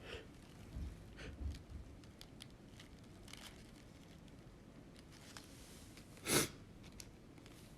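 A person sneezes once, a single short, sharp sneeze about six seconds in. Before it there are only a few faint small noises.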